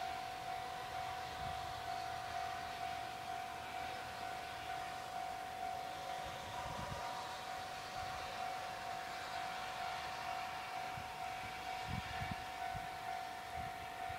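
Railway level-crossing warning bell ringing steadily: one unchanging tone pulsing about twice a second, signalling that a train is approaching.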